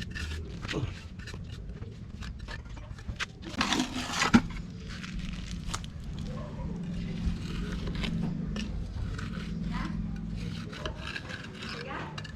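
Tools scraping and rubbing on concrete during a slab pour, with many short clicks. A louder scrape about four seconds in ends in a sharp knock.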